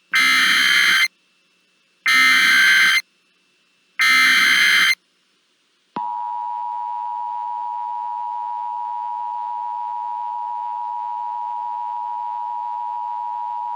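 Emergency Alert System header: three one-second screeching data bursts about a second apart, then the steady two-tone EAS attention signal held for about eight seconds. It is the signal that an emergency alert message is about to be broadcast.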